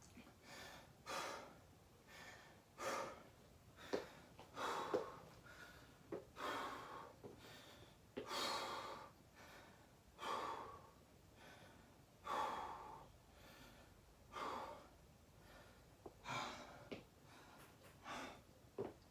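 A person breathing hard after a set of burpees: deep, noisy breaths in and out about every second or two, with a few short sharp clicks among them.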